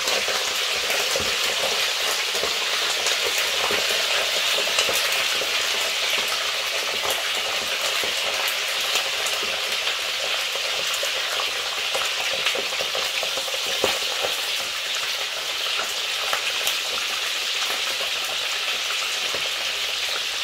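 Fish pieces frying in hot oil in a stainless steel frying pan: a steady sizzle with scattered crackles and pops, one sharper pop about 14 seconds in.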